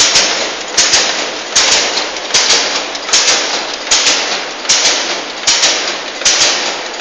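Packaging machine with a thermal transfer overprinter running in its cycle: a sharp clack followed by a fading hiss, repeating about every three-quarters of a second. The sound cuts off abruptly at the end.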